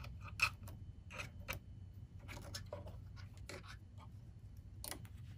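Irregular light clicks and scratches from a small brush working in the metal bobbin area and feed dogs of a sewing machine, clearing out lint.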